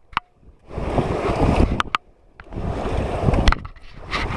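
Raft paddles pulling through river water in a steady rhythm of forward strokes, a wash of splashing roughly every second and a half, with a few sharp knocks in between.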